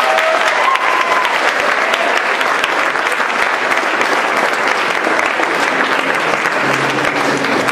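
An audience applauding after a dance performance. A few voices call out in the first second.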